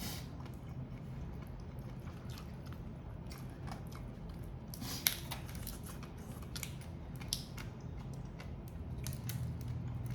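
Prawn and crab shells cracking and snapping while being eaten, in scattered sharp clicks with the loudest snap about five seconds in, over a low steady hum.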